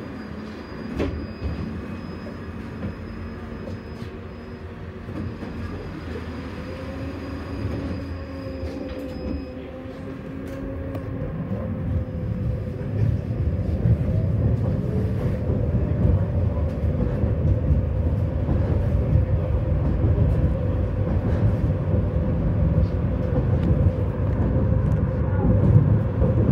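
Tram running on its rails, heard from inside the car: a steady low rumble of wheels with a faint motor hum. It grows clearly louder about halfway through.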